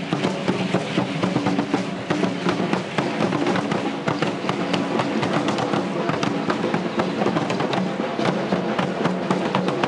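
Aztec-style dance percussion: a drum beating under a dense, continuous rattling of many small clicks from the dancers' ankle rattles.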